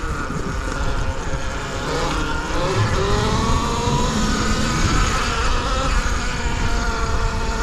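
Rawrr Mantis electric dirt bike's motor whining as it rides, the pitch rising and falling with speed, over a steady low rumble.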